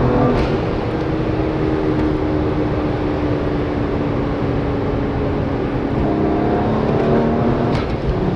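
Tuned BMW 1M's twin-turbo straight-six engine under load. Its note drops just after the start, holds a steady, slowly sinking pitch for several seconds, then climbs again and is cut by a short crack near the end, like a gear change.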